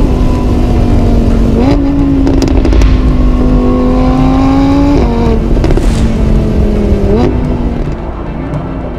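Sports car engine running hard under acceleration, its pitch stepping up about two seconds in and climbing slowly, then dropping sharply at a gear change about five seconds in, with another brief rise and fall a couple of seconds later.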